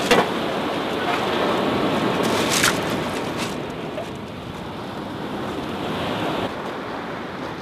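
Surf washing onto a shingle beach, a steady rushing that eases a little near the end. A metal clink right at the start as a frying pan is set down on the steel wood-stove top, and another sharp click a couple of seconds later.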